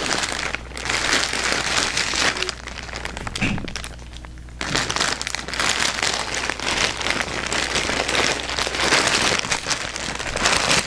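Plastic mail packaging crinkling and rustling as a package is handled and torn open, in two long stretches with a short lull about three to four seconds in.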